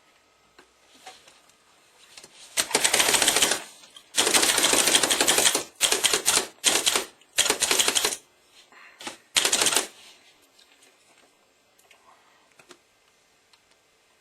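Handheld food processor chopping hazelnuts, run in about seven short pulses, the longest about a second and a half.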